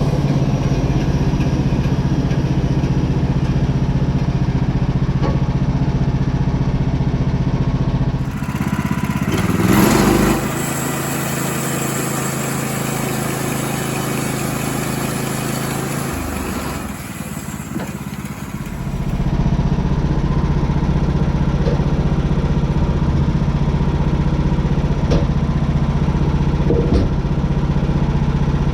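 Gas engine of a portable bandsaw mill running steadily as the mill makes rip cuts. About eight seconds in, the engine hum gives way for roughly ten seconds to a brighter hissing noise with a loud swell near the start of that stretch, then the steady engine hum returns.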